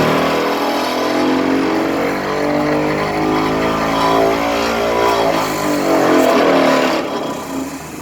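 Tilting-type pile driver's engine running, its pitch rising and falling as the revs change, with no hammer blows.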